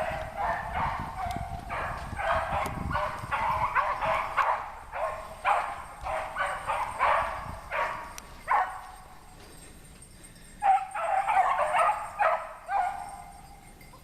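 A pack of rabbit hounds baying on a running rabbit, a steady run of overlapping calls, with a short lull about nine seconds in before the voices pick up again.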